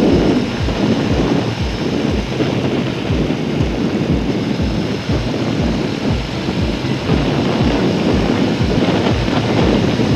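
Wind rushing over an SJCAM SJ6 Legend action camera's microphone on a motorcycle at speed, a loud steady rumble with regular low buffeting pulses about two to three times a second. Heard through the cotton and tape padding that is meant to cut the wind noise.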